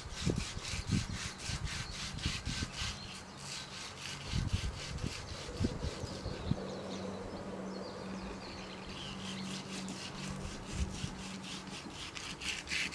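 Quick back-and-forth scraping strokes of a hand tool worked on the swing, about four a second, in two runs with a pause of a few seconds between.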